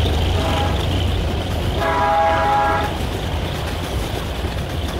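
Loaded freight wagons of a grain train rolling past with a steady low rumble. A train horn sounds faintly near the start and then plainly for about a second around the middle.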